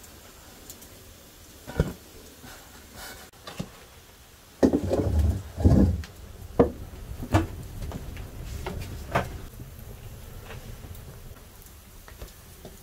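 Knocks and clatter of kitchen things being handled and set down, with a louder run of heavy thuds about five seconds in, then a few single sharp knocks.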